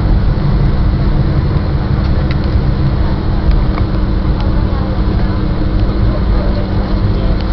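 Boeing 757 cabin noise from a window seat over the wing while the airliner rolls along the runway after landing: a steady low rumble of the engines and wheels, with a steady hum.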